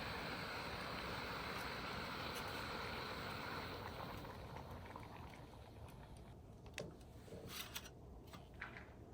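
A steady rushing noise that fades away about five seconds in, followed by a few light clicks.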